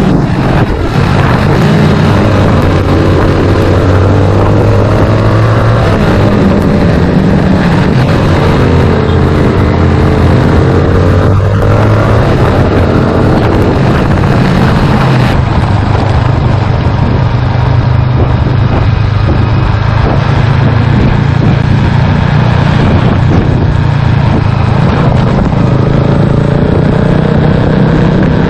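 Motorcycle engine running under way, its pitch rising and falling repeatedly as the throttle and gears change, with a steady rushing noise over it.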